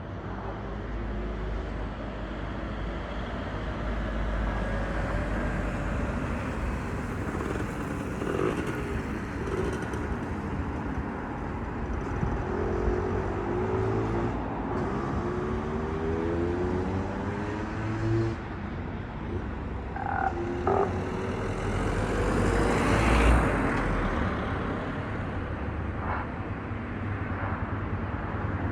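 Road traffic with a constant low rumble. Around the middle, a vehicle's engine rises in pitch several times as it accelerates, and a vehicle passes loudest about three-quarters of the way through.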